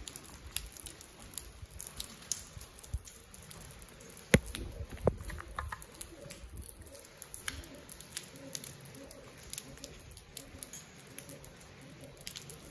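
Rain dripping and pattering in irregular light taps, with two sharper taps about four and five seconds in.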